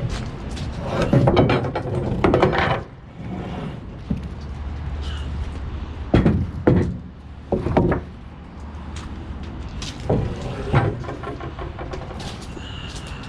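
A heavy truck idling low and steady, with a series of sharp knocks and clunks, the loudest a pair of knocks about six seconds in.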